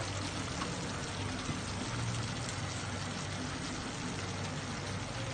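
Steady hiss of a tajine's contents sizzling and simmering over the heat.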